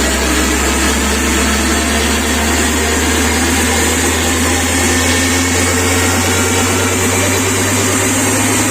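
A huge DJ sound system pumping out a long, loud, unbroken deep bass tone, with a dense, noisy wash of street sound above it.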